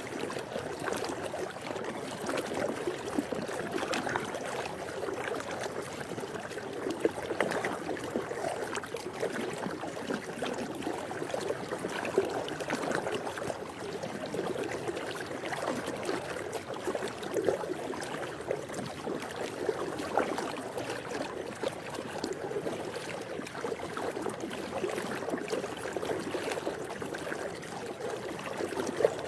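Swimming pool water lapping and trickling without a break, with many small irregular splashes.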